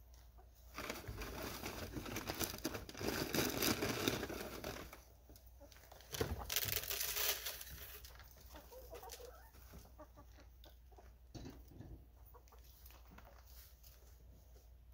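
Hens clucking, with two loud stretches of rustling and crunching, one about four seconds long and one about two, as chicken feed is scooped and poured into a dish.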